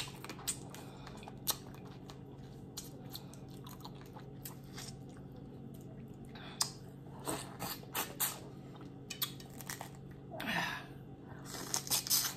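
Close-up eating sounds from a crawfish boil: chewing, with crunches and wet clicks as shells are cracked and the meat is bitten. The clicks come scattered, in small clusters that grow busier in the second half.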